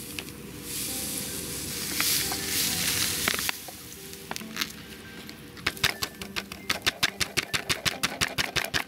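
Oral rehydration powder pouring from a packet into a plastic container of water, a soft hiss for about three seconds. Then a utensil stirring it in the plastic container, clicking against the sides about four times a second through the second half, over background music.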